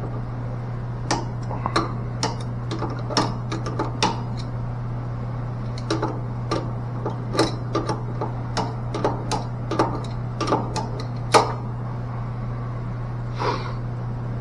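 Irregular small clicks and taps of tools and small valve parts being handled during a mixing-valve check stop rebuild, over a steady low hum.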